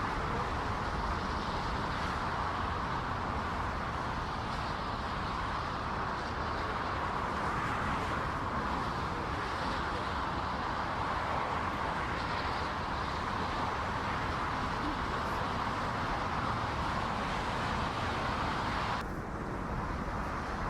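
Steady jet-engine roar from an airliner, a level rushing noise centred in the mid range, which changes suddenly near the end.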